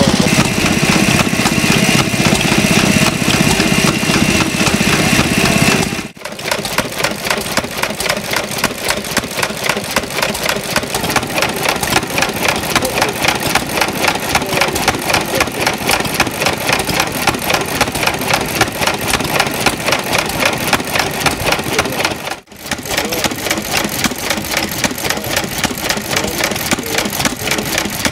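Vintage single-cylinder stationary engines running with a steady, regular beat, in three takes that change abruptly after about six seconds and again near the end. First, the loudest, is a green hopper-cooled engine with a steady hum under the beat. Then comes a red 2¾ HP 'Hired Man' engine, and then a Lister engine belt-driving a small pump.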